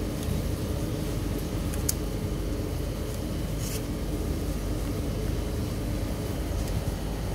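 Steady low hum, with a few light clicks and a short rasp of electrical tape pulled from its roll about three and a half seconds in, as a pump cable joint is taped.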